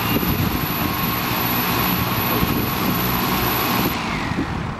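Sky Hero Spyder6 hexacopter's electric motors and propellers running at speed: a loud, steady whirring whine that drops in pitch near the end as the motors slow.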